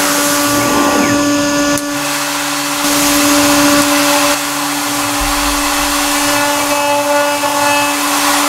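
CNC milling spindle running at a steady speed with a constant whine as a 6 mm single-flute end mill cuts 8 mm aluminium plate, over a steady hiss of compressed air used for cooling.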